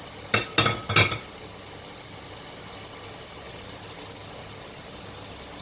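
Three quick, ringing clinks of kitchenware knocked together within about a second, then a steady faint hiss.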